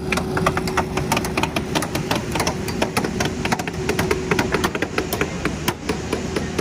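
Several hammers driving nails into wooden framing lumber, many sharp, irregular strikes a second that sometimes overlap. A small engine runs steadily underneath.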